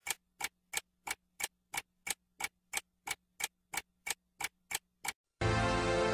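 Clock ticking, sixteen sharp ticks at about three a second, as the intro of an entrance theme; a little after five seconds the ticking stops and loud music comes in.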